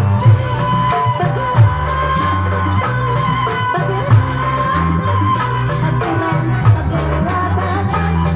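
Music with a repeating bass line, a held melody over it and percussion, with a sharp accent every second or two.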